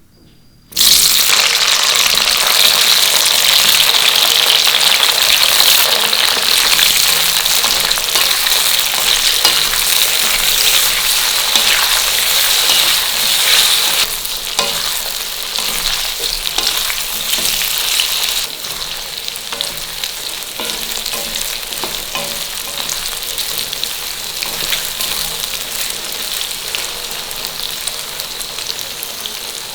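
Food going into hot oil in a pan, which starts sizzling loudly and suddenly about a second in. The frying sizzle then runs on steadily and drops in level twice as it settles.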